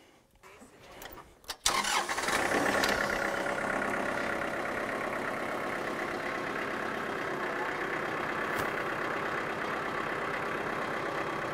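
A small tractor's engine starts up about two seconds in and then runs steadily.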